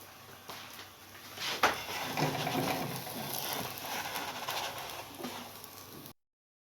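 Kitchen handling sounds: a sharp knock about a second and a half in, then a run of irregular clatter and rustle. It cuts off abruptly shortly before the end.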